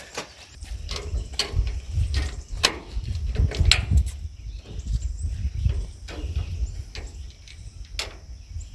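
Scattered sharp clicks and knocks of metal gazebo frame parts and small bolts being handled and fitted, over a low rumble.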